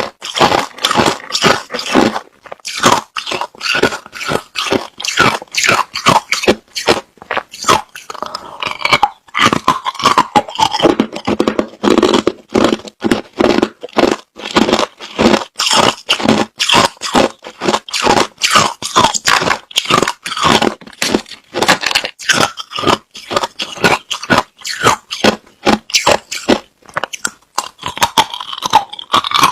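Close-up crunching of clear, hard crushed ice being bitten and chewed: a rapid, unbroken run of sharp crunches, several a second.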